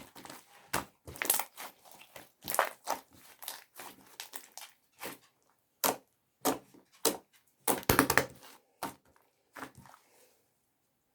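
Clear slime being squished and pressed by hand, giving irregular sharp pops and clicks, a few a second and sometimes in quick clusters.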